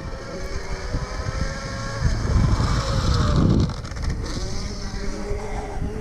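A rally car's engine revving up and down through its gears in the distance on a gravel forest stage, with a heavy rumble of wind buffeting the microphone underneath.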